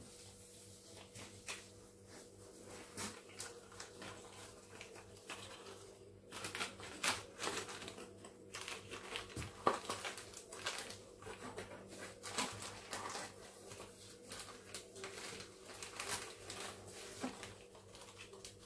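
Plastic bag and cardboard packaging crinkling and rustling in gloved hands, with light clicks and taps, sparse at first and busier from about six seconds in. A faint steady hum lies underneath.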